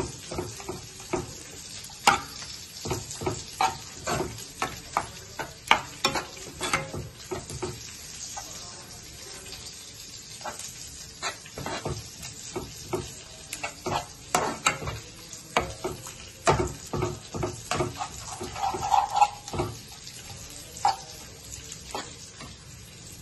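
A spatula stirring mushrooms in a cream sauce in a nonstick pan, with quick, irregular scrapes and knocks against the pan over a low sizzle. There is a brief lull in the stirring around the middle.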